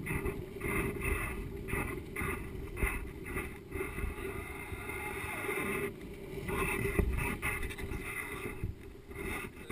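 Wind buffeting the microphone of a GoPro HD Hero hanging under a kite: a steady low rumble, with a higher hiss that comes and goes in irregular gusts.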